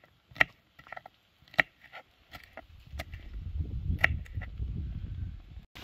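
Kitchen knife chopping a bell pepper on a wooden cutting board: sharp knocks of the blade on the board, coming irregularly about once a second. A low rumble joins from about halfway, and all sound cuts off just before the end.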